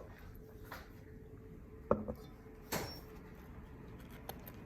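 A few scattered clinks and knocks of a utensil against dishes while food is served, the loudest about two seconds in.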